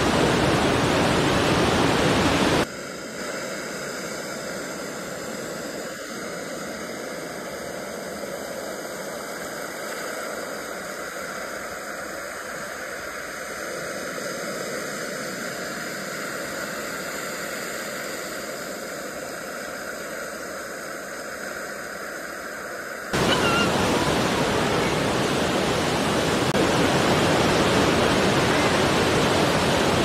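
Steady rushing hiss of ocean surf with no single wave breaks standing out. It drops suddenly to a quieter hiss with less low rumble about three seconds in, and jumps back to full level about 23 seconds in.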